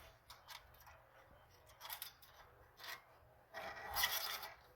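Metal paperclip scraping and rubbing in the gap between the magnets and the flywheel of a magnetic exercise bike, in short irregular strokes with a longer scrape near the end. It is working loose debris that makes the flywheel scrape.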